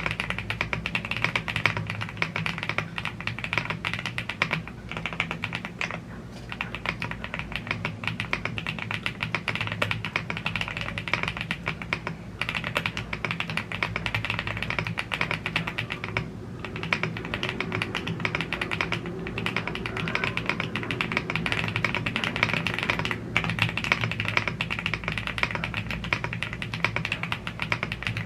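Continuous fast typing on a YUNZII AL75 gasket-mounted aluminium mechanical keyboard with Blue Grey tactile switches and PBT keycaps: a dense stream of keystroke clacks, broken by a few short pauses.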